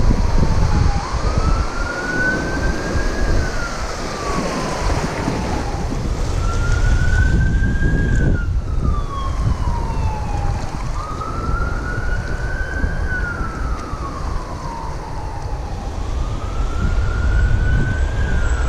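A siren wailing: its tone climbs quickly, then slides slowly back down, four times about five seconds apart. Wind rumbles on the microphone underneath.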